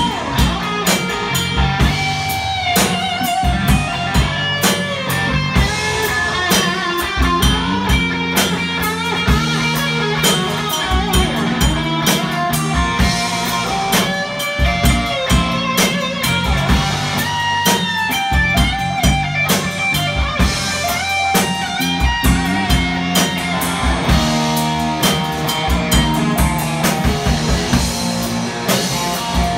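Live rock band: an overdriven electric guitar plays a lead solo of sustained, bent notes with vibrato over a steady drum kit beat.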